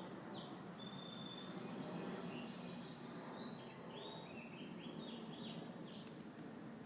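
Birds chirping, with short high chirps and a quick run of notes about four to five seconds in, over a steady low background noise.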